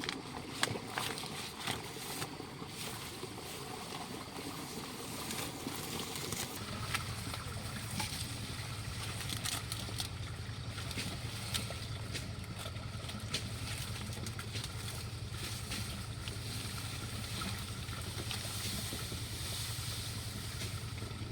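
Scattered sharp clicks and taps, then about seven seconds in a steady low motor hum starts and keeps running.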